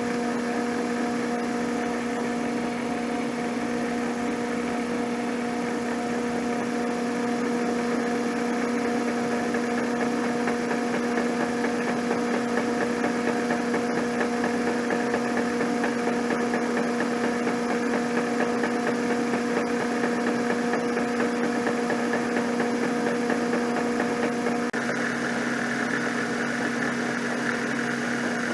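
Abene milling machine running steadily with a strong motor hum, cleaning up the saw-cut sides of T-nut stock. The tone of the machine shifts slightly near the end.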